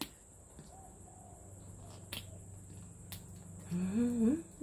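A few faint clicks as the cap of a small plastic dropper bottle is worked open by hand, then near the end a woman humming a short phrase that rises in pitch.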